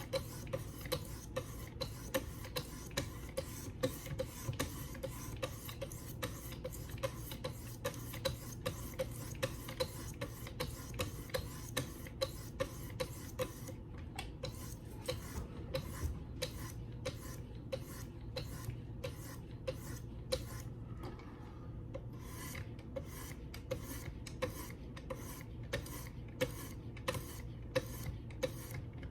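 Knife blade being stroked against 800 grit sharpening stones on a Wicked Edge guided sharpener: a fast, even run of short scraping strokes, a few a second, over a steady low hum.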